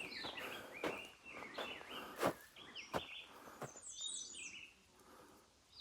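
Several birds chirping in short, quick calls, with a few scattered footsteps on a gravel trail. The birdsong thins out and goes quiet about five seconds in.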